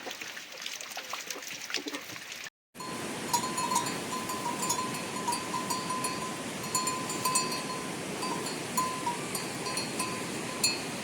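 Livestock bells clinking irregularly, with a steady ringing tone, over the steady hiss of heavy rain; the sound drops out for an instant after about two and a half seconds.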